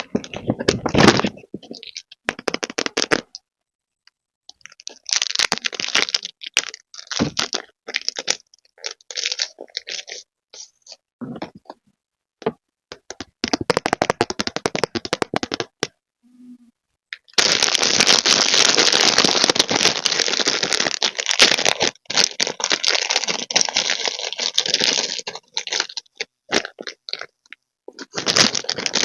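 Packaging being handled and opened: crackling, crinkling and scraping in irregular bursts with short silent gaps, then a long unbroken stretch of dense crinkling past the middle.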